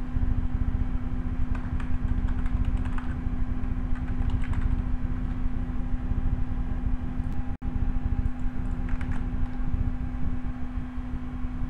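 Steady low hum and rumble of background machine noise, with faint computer keyboard taps in the first few seconds as a web address is typed. The sound cuts out for an instant about two-thirds of the way through.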